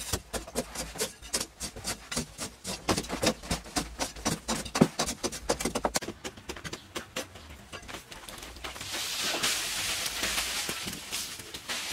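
Long-handled hand digging tools chopping into packed clay soil, with irregular strikes several a second. About nine seconds in, a steady rush of loose earth and dust thrown up out of a shaft takes over for a few seconds.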